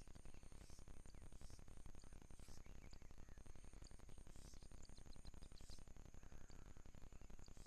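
Faint outdoor insect chorus: steady high-pitched trilling, one of the trills pulsing about three times a second, with scattered short high chirps over a low background rumble.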